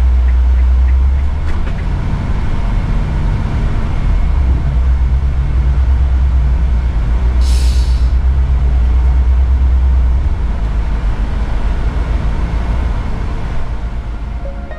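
Motor coach's diesel engine and road noise heard from the driver's seat while cruising on the highway: a deep, steady rumble that eases off near the end. A short hiss comes about seven and a half seconds in.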